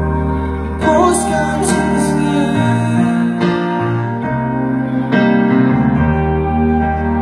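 Live band playing a slow song: keyboard chords over bass, electric guitar and drums, the chords changing every second or two.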